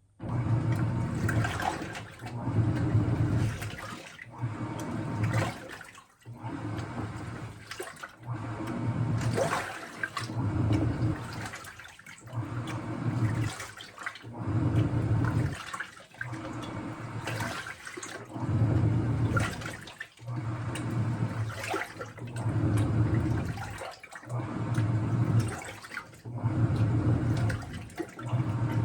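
Washing machine drum turning with water sloshing inside, in even swishing surges about every two seconds. It starts suddenly from near silence.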